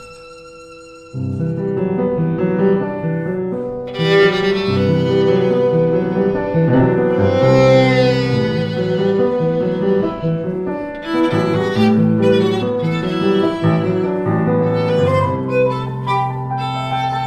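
Violin and grand piano playing a jazz-inflected piece together. After a faint held note, piano chords come in about a second in, and the violin enters louder about four seconds in, with a wavering high line midway.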